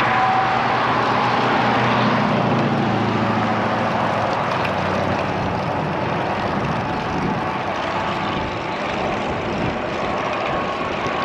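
Wind noise on a bicycle-mounted action camera's microphone while riding on a road. A passing motor vehicle's engine hum is heard in the first half and fades out about halfway through.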